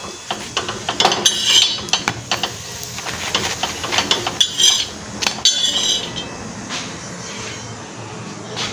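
Slotted metal spatula scraping and tapping on a flat iron griddle (tawa) while turning a roti: a quick run of clicks and scrapes for about six seconds, then only a low steady background.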